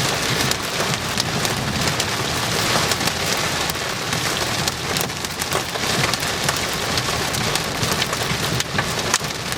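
Heavy rain mixed with hail pelting the windshield and roof of a vehicle, heard from inside the cabin: a dense, steady hiss with many sharp ticks of individual hits.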